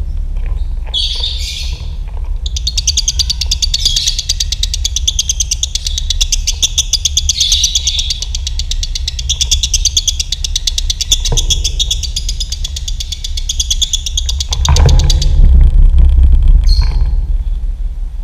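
Lovebird singing a long, very rapid chattering trill (the 'ngekek' song kept for masteran training audio) that lasts about twelve seconds after a short call about a second in, over a steady low rumble.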